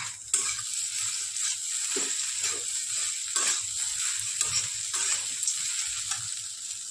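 Poha (flattened rice) with peanuts sizzling in a kadhai while a metal spatula stirs it, scraping along the pan in short strokes about every second or so over a steady frying hiss.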